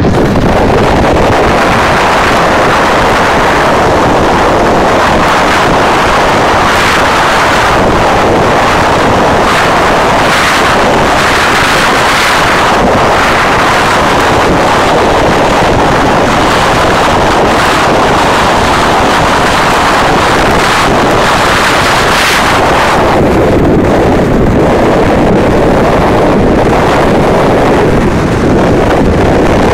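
Loud, steady wind rushing over the microphone of a camera carried on a motorcycle moving at highway speed, with the road and vehicle noise under it.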